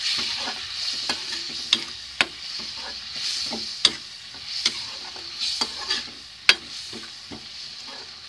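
Masala paste and ground spices sizzling in mustard oil with a splash of water in a kadhai on low flame, being stirred with a spatula that scrapes and clicks against the pan about once a second.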